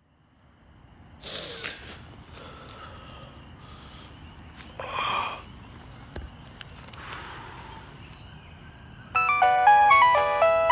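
Low outdoor hush with a few soft noises, then about nine seconds in a mobile phone starts ringing with a melodic ringtone: a quick run of bright stepped notes, much louder than what came before.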